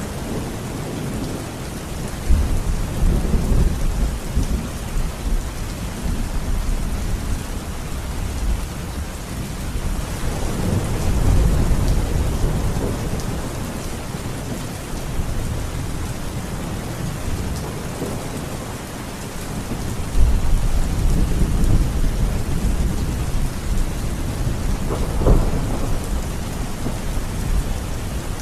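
Thunderstorm: steady rain with rolling thunder. Deep rumbles swell about two seconds in, again around ten seconds and around twenty seconds, and a sharper thunderclap comes near the end.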